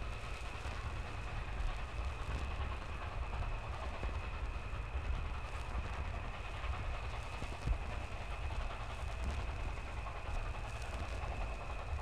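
A steam train gives a low, steady rumble under a continuous high trill of crickets.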